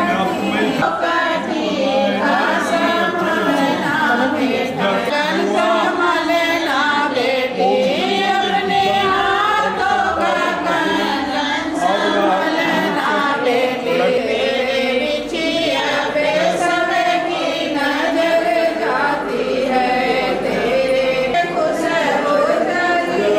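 A group of voices singing together, a choir-like chant.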